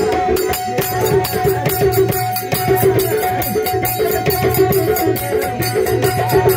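Instrumental interlude of a Marathi devotional song: hand drums and jingling percussion keep a quick, steady beat under a held melodic tone, with no singing.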